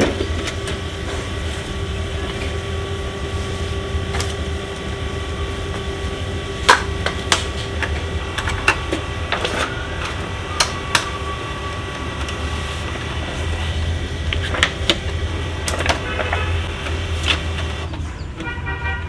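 Sheets of printer paper being fanned and loaded into the input tray of an HP LaserJet M15w laser printer: a scatter of sharp taps and clicks with paper rustling, over a steady low hum.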